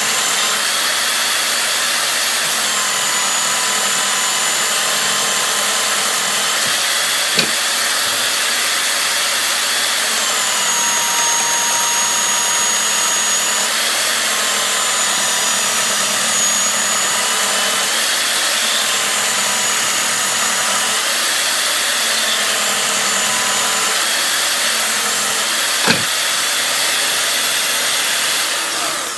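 Handheld belt sander clamped upside down as a bench sander, running steadily with a high motor whine while pieces of pallet slat are pressed onto the belt. The whine drops in pitch for a few seconds at a time, several times over, as the wood bears down and loads the motor. There are two sharp knocks, about seven seconds in and near the end.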